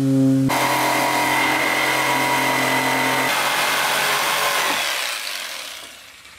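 Orange corded jigsaw running and cutting a curved notch through a wooden cabinet board. It starts suddenly about half a second in, runs steadily for a few seconds, then dies away near the end.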